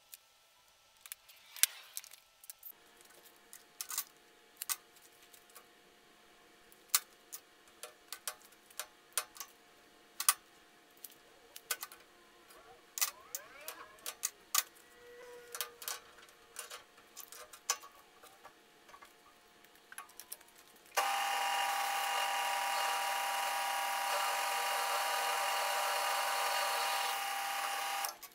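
Light clicks and taps of steel tubing and hand tools being handled at a drill-press vise. Near the end comes a steady, much louder grinding whine for about seven seconds: a drill press's twist bit cutting a hole through quarter-inch-wall square steel tube. The whine cuts off suddenly.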